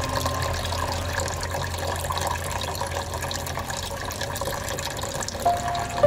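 Small tabletop water fountain running: a thin stream of water pours steadily from a hose spout into a shallow water-filled basin, with a continuous trickling splash.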